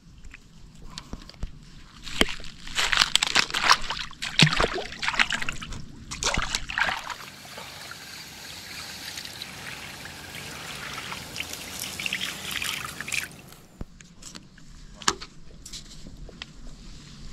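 Water splashing and sloshing in several irregular bursts, then a steadier trickling hiss that stops about four seconds before the end, followed by a few light knocks.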